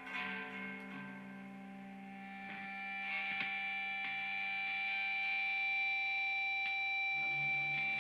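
Distorted electric guitar played solo, holding long notes and then a chord that rings out for several seconds; a high tone swells within the held chord from about three seconds in.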